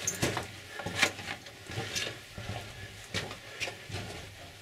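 Footsteps on the dirt and rock floor of a mine tunnel, a step about every second.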